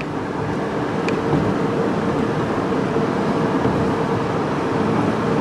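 Cabin noise of a 2011 Chevy Equinox on the road: a steady rush of tyre and road noise with a low, even drone from the 2.4-litre four-cylinder engine.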